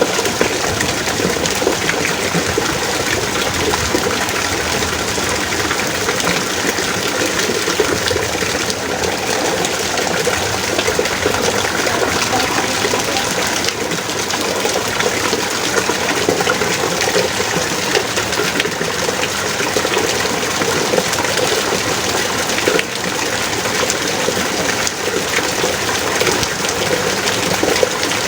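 Heavy rain falling steadily in a continuous downpour, as a dense even hiss.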